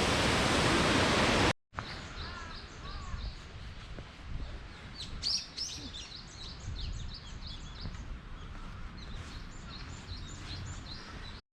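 Loud, steady rush of a waterfall that cuts off suddenly about a second and a half in, followed by small birds chirping and twittering repeatedly over a faint low rumble of wind or distant water.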